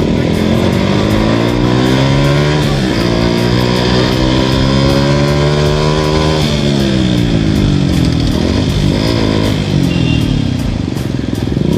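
Suzuki Gixxer SF 155 single-cylinder engine with a modified exhaust, accelerating. Its pitch rises, drops with a gear change about three seconds in, climbs again until about six seconds in, then falls away as the rider eases off.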